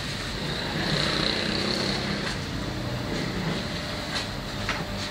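Steady street traffic noise: a vehicle engine running with a low hum, with a few faint clicks.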